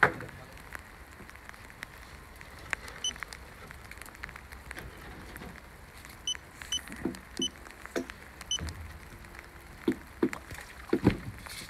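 Handheld laser distance meter giving short, high beeps about five times, amid light taps and handling clicks.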